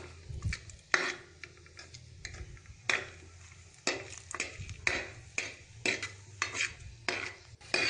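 Metal ladle scraping and knocking against the bottom of an aluminium pressure cooker as cashews are stirred while frying in oil, in irregular strokes about one or two a second.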